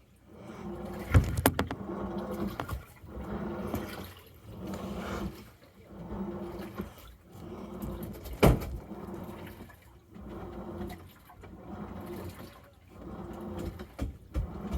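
Samsung washing machine running a wash: the drum turns in repeated surges a second or two apart, with motor hum and water sloshing. Two sharp knocks come about a second in and again just past the middle.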